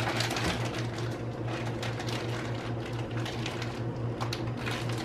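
Crinkling and crackling of a foil-lined Cheetos bag being pulled and peeled open by hand, many small crackles over a steady low hum.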